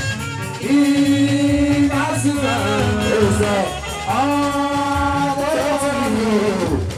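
Fuji music with a singer over the band: the voice holds two long notes, each bending down at the end, over a steady low accompaniment.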